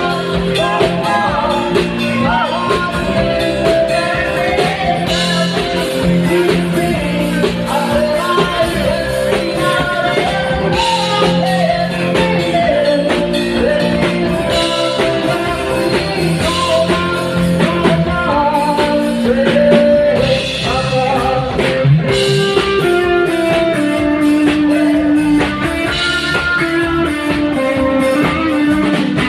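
Rock-style song with a singing voice over guitar and a steady beat.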